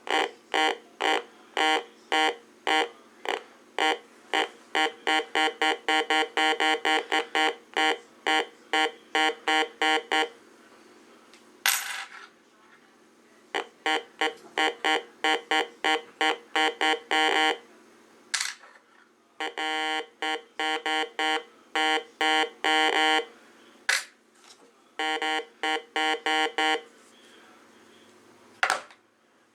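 Heathkit GD-1190 metal detector sounding its target tone: quick beeps, about three or four a second, in bursts lasting a few seconds each as metal items pass over the search coil. A few single sharp knocks fall between the bursts.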